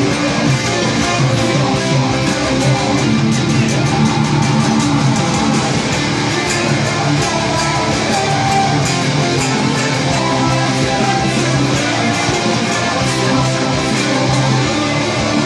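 Metalcore band playing loud with distorted electric guitars and drums, recorded through a phone microphone with a harsh, low-quality sound.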